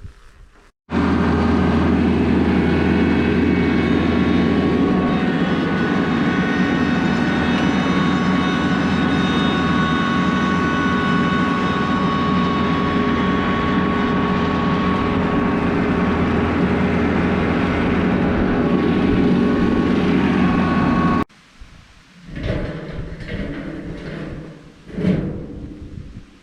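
Tractor engine running at a steady speed, loud and unchanging, starting and stopping abruptly. After it stops, a few knocks and a clatter follow near the end.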